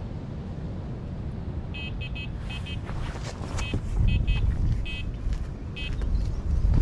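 Electronic carp bite alarm sounding in irregular bursts of short high beeps, the sign of a fish taking line on a run. Wind rumbling on the microphone underneath.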